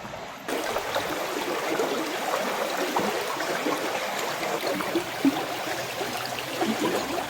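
A small river flowing and babbling. The water sound steps up to a louder, closer level about half a second in.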